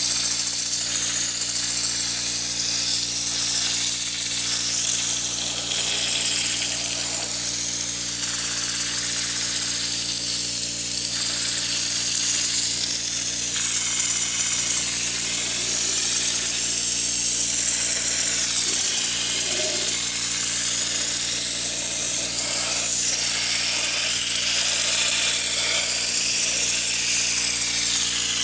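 Air-powered engine cleaning gun spraying compressed air and degreaser onto a bare engine block: a loud, steady hiss, with a steady low hum underneath.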